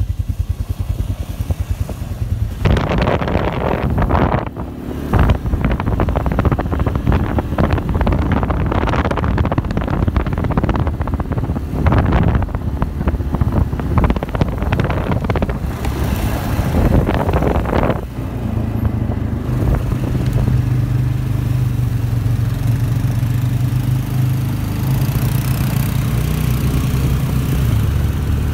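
ATV engines running steadily while riding on a trail. From about 3 s to 18 s a heavy crackling noise masks the engine, and after that a clear, steady engine hum comes through.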